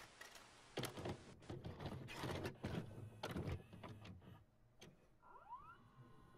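VCR tape-mechanism sound effect: scattered clicks and clunks of a cassette being loaded, with a short motor whine rising in pitch about five seconds in.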